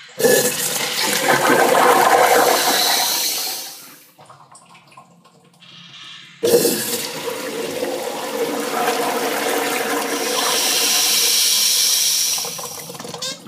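A urinal flushing twice. A sudden rush of water lasts about four seconds, and after a two-second pause a second, longer flush starts just as suddenly and fades out near the end.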